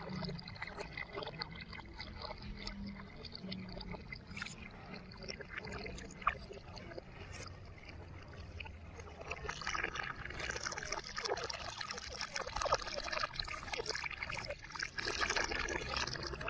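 Garden hose running a thin stream of water into a plastic tub of water, with splashing as small hands stir it. The pouring and splashing get busier and louder about ten seconds in.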